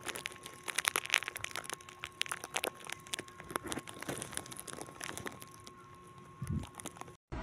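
Close-up handling noise from the Marshall Major IV headphones being handled: a dense run of small crackles, clicks and creaks over a faint steady high tone. It cuts off suddenly near the end.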